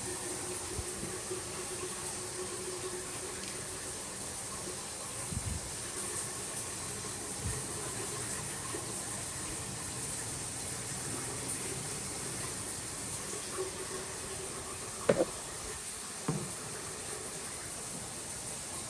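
Steady rush of running water from a shower, run as a leak test on the shared drain, with two brief knocks near the end.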